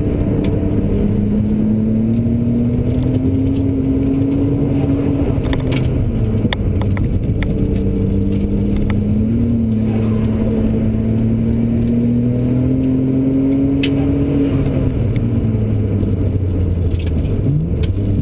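A car's engine heard from inside the cabin, running steadily at moderate revs. Its pitch climbs slowly and then drops away twice, over constant road rumble.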